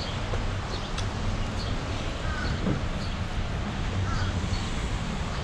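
Steady outdoor background noise with a low hum, and a few faint short bird chirps, about two and four seconds in.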